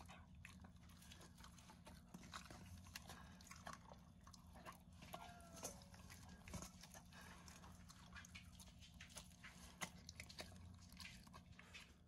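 A dog eating soft wet food from a stainless steel bowl: faint, irregular smacking and licking clicks over a low steady hum.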